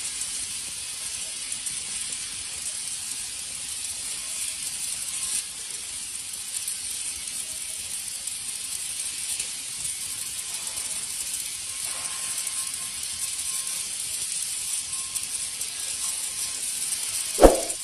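MIG (gas metal arc) welding arc crackling steadily, a fast, fine sputter with a hiss. Near the end there is one loud metallic clang that rings briefly.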